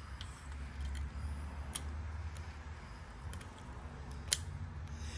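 Small metallic clicks and scrapes of a lock ring being worked by hand into its groove in a manual locking hub on a Dana 44 front axle, with one sharper click about four seconds in.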